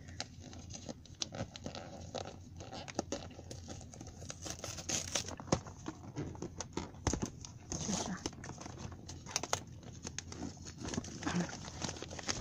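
Wrapping paper crinkling and tearing as it is pulled off a gift by hand, in irregular rustles and sharp crackles.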